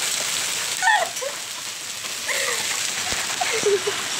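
Heavy rain mixed with hail pelting a paved road, a steady hiss, with a few short voice sounds breaking through.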